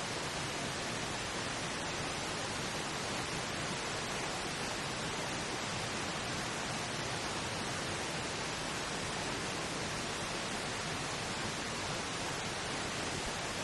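Steady pink noise, an even, unchanging hiss across the whole range, used as a masking bed for a subliminal affirmation track.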